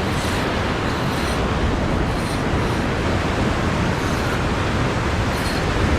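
Steady rushing noise of ocean surf mixed with wind on the microphone.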